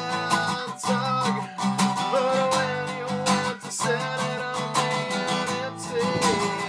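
Background music: a strummed acoustic guitar with a melodic lead line over a steady beat.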